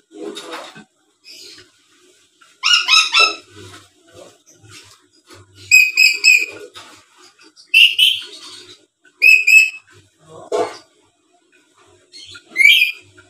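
Black-capped lory calling: a series of short, loud, shrill squawks and whistles in bursts every second or two, with softer chattering between them.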